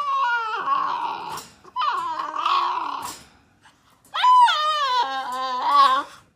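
A dog making three long, drawn-out howling whines, each one starting high and sliding down in pitch.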